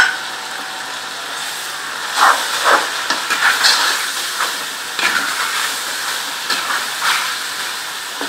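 Chicken pieces frying in hot oil in a non-stick pan, a steady sizzle, with a wooden spoon stirring and scraping through them in a run of strokes from about two seconds in. A sharp knock at the very start.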